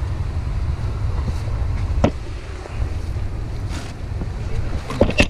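Wind buffeting the microphone as a steady low rumble, with a sharp knock about two seconds in and two more near the end.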